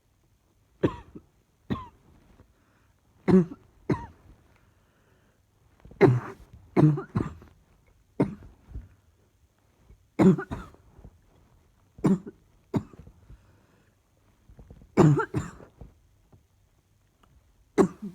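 A person coughing repeatedly, in short chesty coughs that come singly or in pairs every second or two.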